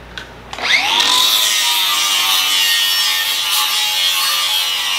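Angle grinder spinning up with a rising whine about half a second in, then grinding steadily against steel plate, taking off the mill scale.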